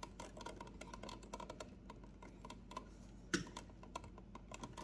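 Faint, quick clicking and crackling of a red twist-on wire nut being screwed tight over a bundle of ground wires, with one sharper click about three seconds in.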